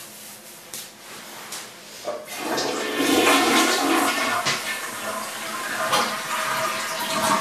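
Toilet flushing: a loud rush of water starts suddenly about two seconds in and keeps going.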